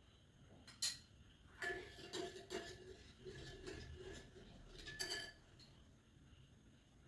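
A spoon clinking against a bowl while ingredients are stirred together. There is one sharp tap just under a second in, then about four seconds of repeated ringing clinks.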